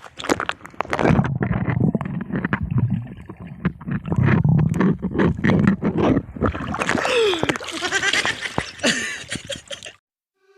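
Water splashing and sloshing as people swim in a spring-fed pool, with a few brief voices; the sound cuts off suddenly near the end.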